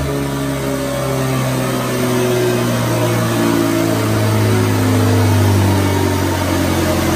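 Yamaha TT-R230's air-cooled single-cylinder four-stroke engine running on a chassis dynamometer, rear wheel driving the roller, holding a fairly steady pitch with small rises and falls.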